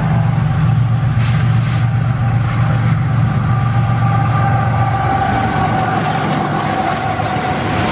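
GE GEU-40 diesel-electric locomotive passing at speed at the head of a freight train: a steady, heavy engine rumble. About halfway through, a steady higher whine comes in as the locomotive goes by.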